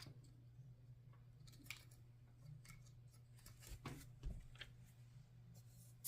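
Faint scattered clicks and taps of hands handling small plastic parts, a few close together a little past the middle, over a low steady hum.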